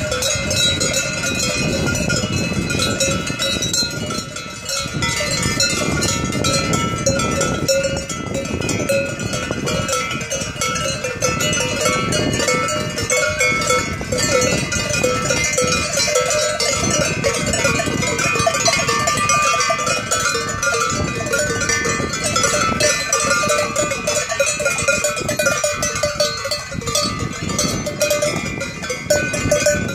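Many cowbells on a herd of cows ringing together as the cows walk, a continuous jangle of several bell pitches at once.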